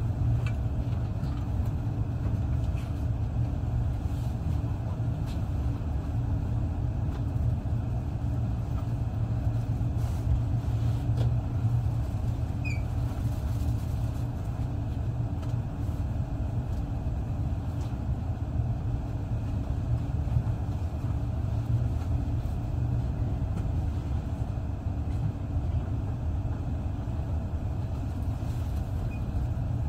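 Steady low rumble of a passenger train heard from inside the carriage as it rolls into a station, with a few faint clicks from the running gear.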